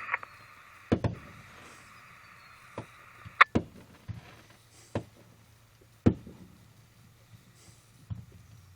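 Fireworks going off: about eight sharp bangs at irregular intervals, some with a short low rumble after them, the loudest about three and a half seconds in.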